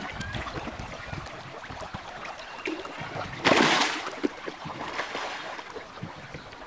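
Pangas catfish splashing at the pond surface as they feed: a continuous patter of small splashes and slaps on the water. About halfway through, one louder rushing splash lasts about half a second.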